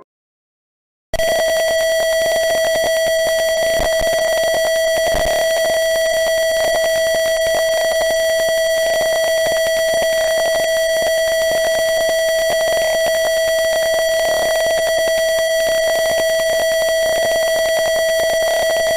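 Simulated piezo buzzer of an Arduino fire-alarm circuit in TinkerCAD sounding its alarm: one loud, unbroken electronic tone at a fixed pitch that switches on abruptly about a second in. It is the alarm going off because the simulated temperature has been raised past the trigger threshold.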